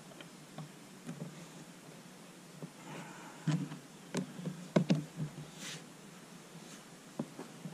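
Handling knocks and clicks on the plastic housing of a Champion 2500-watt inverter generator, its engine not running. A handful of sharp knocks, bunched together about three and a half to five seconds in, then a short scrape and two lighter knocks near the end.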